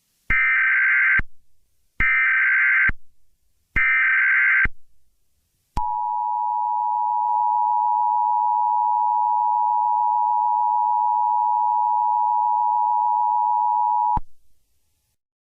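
Emergency Alert System tones: three SAME header data bursts, each a harsh screech of digital tones about a second long, then the two-tone attention signal held steady for about eight seconds before cutting off. Together they mark the start of a new emergency alert message.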